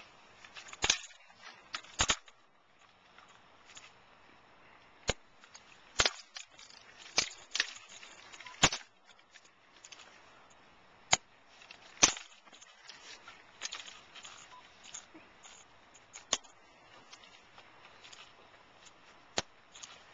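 A rifle drill team handling drill rifles without spoken commands: single sharp slaps and clacks of gloved hands and rifles striking, about a dozen spaced irregularly a second or more apart.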